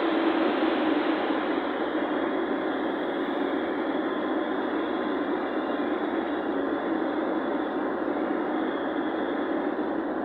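Steady road and engine noise of a moving vehicle, an even rush with no distinct events.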